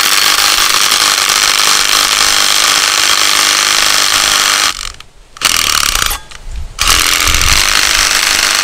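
Cordless power driver running hard as it drives a concrete screw through a steel post bracket into a concrete slab, in two long runs broken by a short pause about five seconds in.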